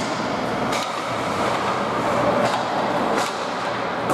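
Ice hockey game noise in a rink: a steady rumble of play with three short, sharp scrapes of skates or sticks on the ice.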